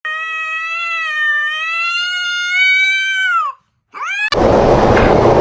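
A cat's long drawn-out yowl, held on one pitch for over three seconds and dropping away at the end, then a short rising-and-falling meow. A loud rushing noise cuts in near the end.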